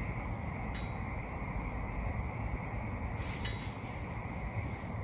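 Cardboard fire burning in a stainless steel biomass camping stove: a steady low rush of flame, with two sharp ticks or crackles a few seconds apart.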